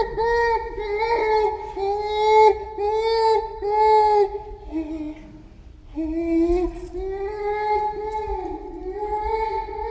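Gorilla vocalizing: a run of short, high-pitched arched calls about two a second, then after a brief pause near the middle, longer wavering calls.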